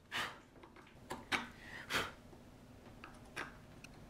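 Bench chisel pushed by hand, paring wood: a few soft, short scraping cuts with small clicks, cleaning the walls of a chopped mortise back to the layout lines.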